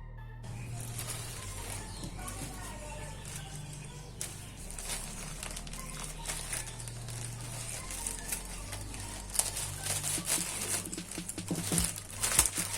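Plastic packaging crinkling and rustling as a parcel is handled and opened, getting busier and louder toward the end, over background music.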